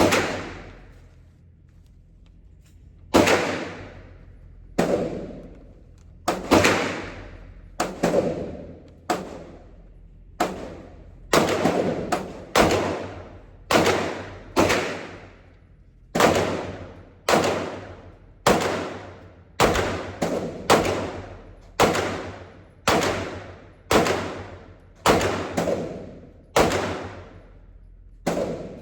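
A string of about two dozen pistol shots from a 9 mm Glock 19, fired at an uneven pace of roughly one a second with some quick doubles, each shot trailing off in echo.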